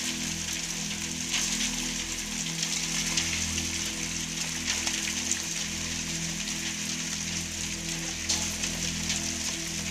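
Heavy rain mixed with hail falling on a wet concrete yard: a steady hiss with many small, sharp ticks throughout.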